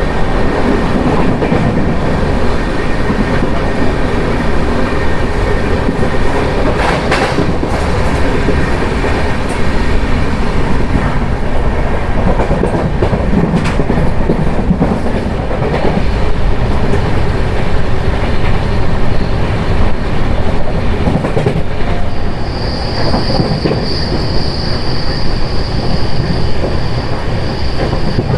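Jan Shatabdi Express passenger train running at speed: a loud, steady rumble of the coach on the track with a couple of sharp clacks. About three-quarters of the way through, a high, steady wheel squeal sets in and holds to the end.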